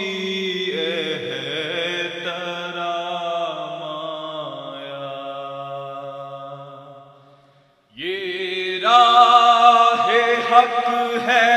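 A man's voice singing an Urdu naat in long, held, wavering notes. The phrase fades out about seven seconds in, and after a brief break a new, louder held note begins.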